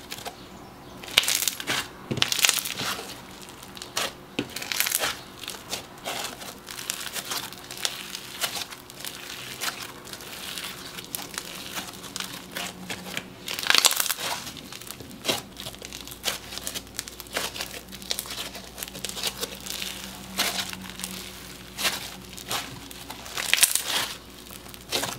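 Crunchy micro foam slime being squeezed, stretched and folded by hand: its foam beads crackle and crunch unevenly, loudest a little past halfway and near the end.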